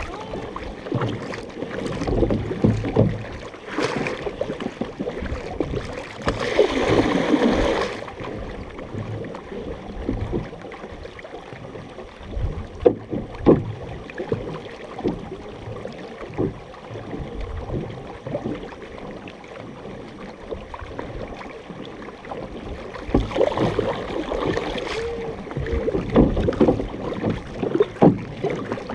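Paddles of a large multi-person canoe dipping and pulling through the water in uneven strokes, with water splashing and rushing along the hull close to the microphone. Louder splashy stretches come about a quarter of the way in and again near the end.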